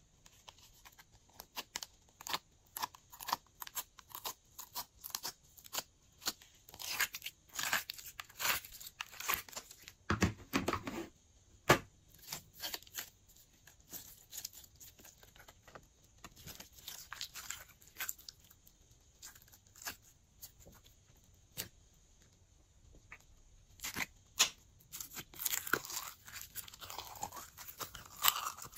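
Glossy slime being squished and mixed by hand, making irregular crackling, clicking pops, thicker in two stretches near the middle and near the end.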